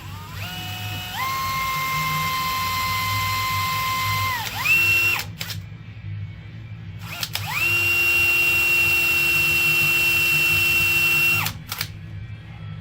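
Electric drill boring a small 3 mm pilot hole into a steel frame rivet. The motor spins up in a couple of steps to a steady whine, runs about four seconds, slows and briefly revs higher before stopping. A second steady run at a higher pitch follows for about four seconds and cuts off.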